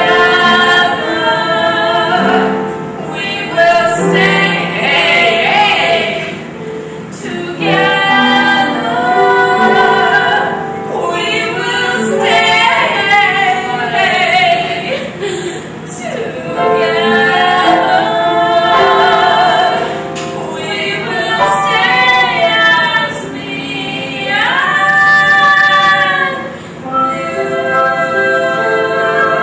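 Cast of a stage musical singing a number together, several voices in harmony over held accompaniment, phrase after phrase with short breaths between.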